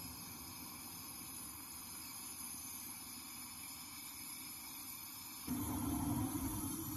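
Gas brazing torch flame hissing steadily while a copper refrigerant pipe joint is brazed. About five and a half seconds in, a louder, lower rushing sound joins it.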